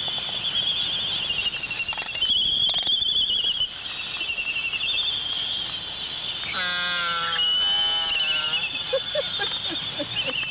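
Laysan albatrosses calling in a courtship dance: high wavering calls throughout, with one long, drawn-out call rich in overtones about six and a half seconds in and a few short low notes near the end.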